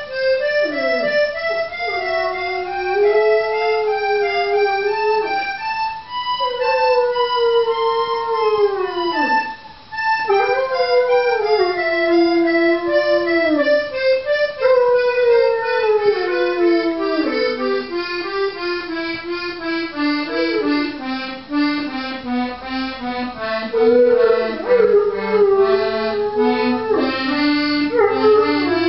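Landseer dog howling along with an accordion: a series of long howls, each lasting several seconds and many sliding down in pitch at the end, over the accordion's held notes and melody.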